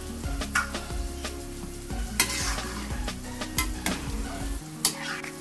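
Metal ladle and spatula stirring soup in an aluminium pot, clinking and scraping against the pot over a steady hiss, with a louder clink about two seconds in and another near the end.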